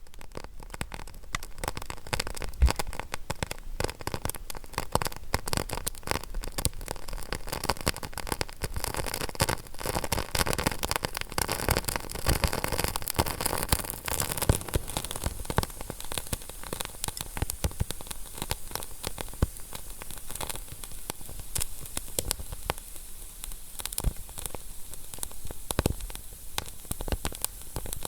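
Wood fire crackling in a fireplace: a steady hiss with dense, irregular pops and snaps.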